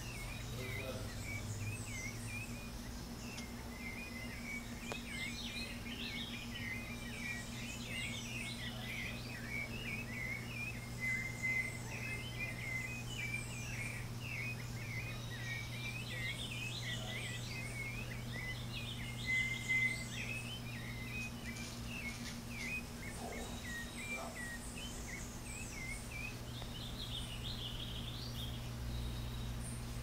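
Many small birds chirping, short overlapping calls running on without a break, over a steady low hum.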